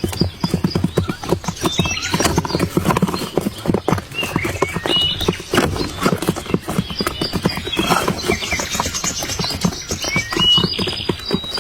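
Quail calling in short, high chirps over a dense, rapid patter of clicks.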